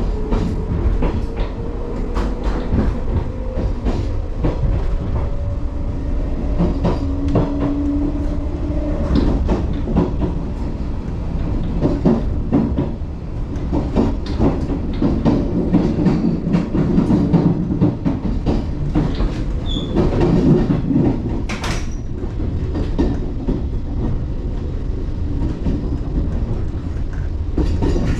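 JR 381 series tilting limited express electric train running at speed, heard from inside the car by the door: a steady rumble with the clickety-clack of wheels over rail joints. A whine rises in pitch over about the first nine seconds.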